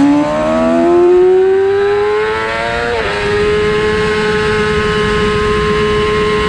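2006 Yamaha R6's inline-four engine pulling hard, its pitch rising through a gear, then dropping sharply about three seconds in as it shifts up, and holding a nearly steady pitch after that.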